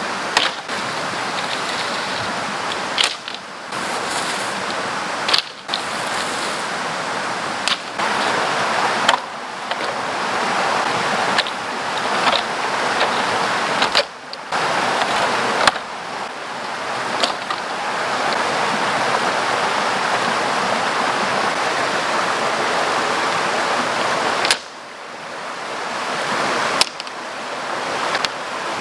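Steady rush of water, broken several times by abrupt short gaps, with a few sharp clicks or knocks here and there.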